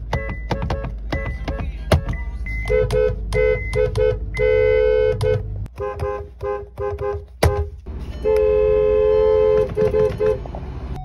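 Dual-tone car horns honking one after another, mostly short taps with two longer blasts, the longest about a second and a half. Sharp clicks sit between some of the honks.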